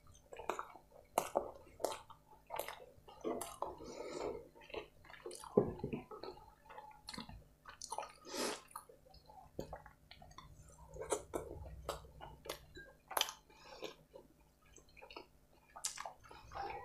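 Close-miked eating: wet chewing with sharp, irregular lip smacks and mouth clicks, and soft squishing as fingers mix rice and curry sauce on the plate.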